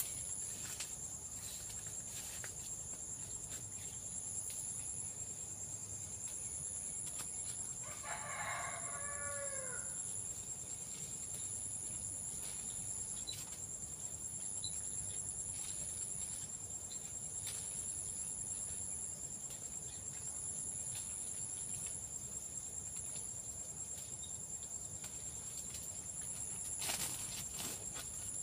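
Insects keep up a steady high-pitched drone with a second high tone that pulses on and off. A rooster crows once about eight seconds in, the call falling in pitch at the end, and there is a brief knock near the end.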